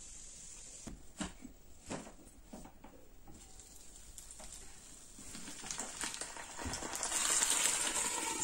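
Milk-soaked stuffed bagels sizzling softly in a frying pan over low heat, the sizzle swelling louder over the last three seconds. A few light knocks sound about one and two seconds in.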